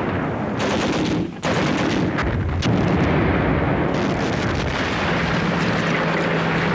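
Battle sound: gunfire and artillery explosions in a dense, continuous din, with a steady low hum joining about five seconds in.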